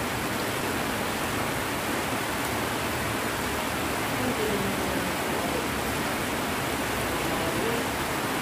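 Heavy rain pouring down steadily, an even hiss of rain falling on plants and wet ground.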